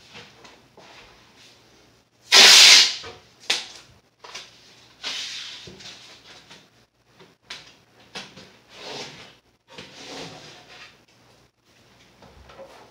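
Masking tape being pulled off its roll in rasping rips, the loudest and longest about two and a half seconds in and several shorter ones later, with small knocks and clicks of handling against the wooden cabinet.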